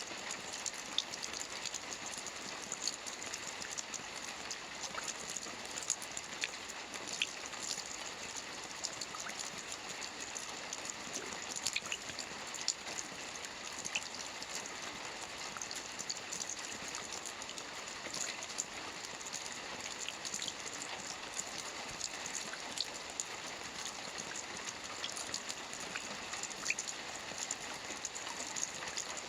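Gentle rain falling steadily: an even hiss with many separate drops ticking through it.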